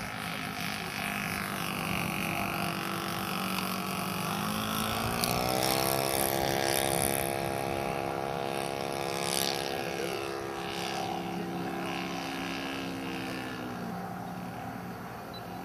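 ASP400 model aircraft engine, converted from glow fuel to petrol, running in flight. Its pitch climbs about four seconds in, holds steady, then drops back near the end.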